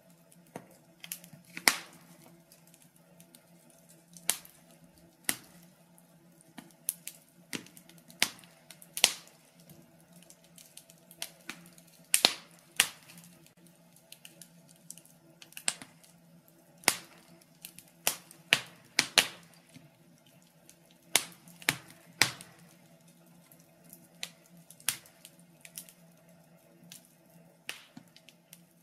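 Wood fire crackling in a small stove, with irregular sharp pops and snaps, one or two a second and sometimes in quick clusters, over a steady low hum.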